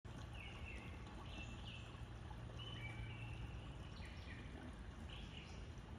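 Creek water running steadily over rocks, with a small bird calling short chirps again and again over it.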